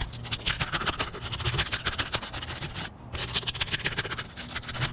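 Gritty scraping and crackling of an asphalt roof shingle being handled and lifted at its edge, in two spells with a short break about three seconds in.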